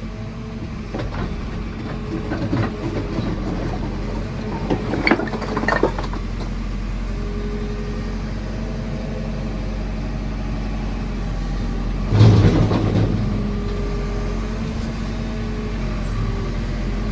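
JCB 4CX backhoe loader's diesel engine running steadily while the back bucket works, with several clanks in the first few seconds and a heavy thump about twelve seconds in.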